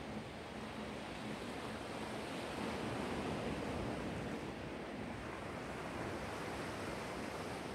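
Black Sea waves washing ashore, a steady rush of surf with only gentle swells in level.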